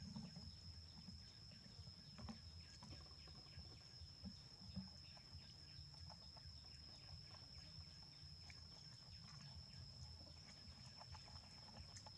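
Near silence: faint outdoor ambience with a steady high-pitched whine and a few faint ticks.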